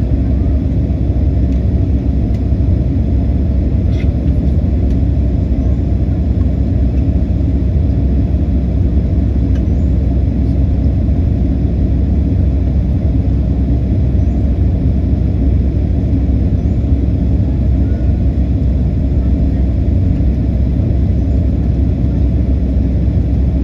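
Airliner cabin noise in flight: a steady low rumble of engine and airflow noise, with one faint click about four seconds in.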